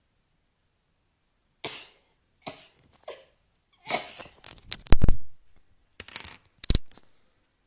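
A person sneezing: a run of short, sharp bursts beginning about a second and a half in, the loudest about five seconds in.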